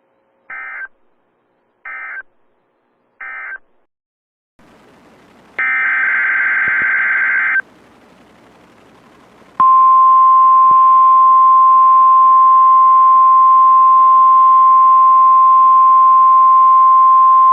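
NOAA Weather Radio Emergency Alert System tones: three short digital end-of-message data bursts about 1.3 seconds apart, then, over radio hiss, a longer warbling SAME header data burst, and a couple of seconds later the loud, steady 1050 Hz warning alarm tone comes on and holds.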